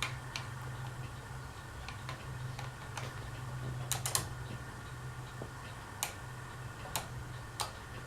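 Dayton Leading Edge industrial ceiling fan motor humming steadily, with a few scattered sharp clicks: a small cluster about four seconds in and single ones near the end.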